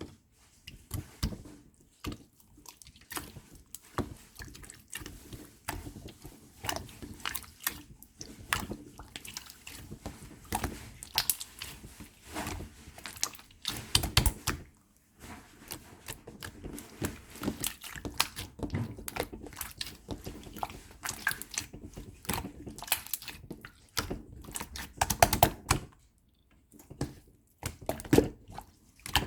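Mixed slime being squished and worked by hand, giving a steady run of irregular sticky clicks and wet pops, with two brief pauses.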